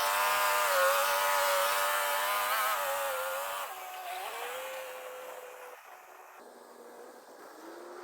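Tractor-trailer's diesel engine pulling under load, holding a steady pitch, dropping at a gear change about three and a half seconds in, then running on at a steadier pitch and fading into the distance.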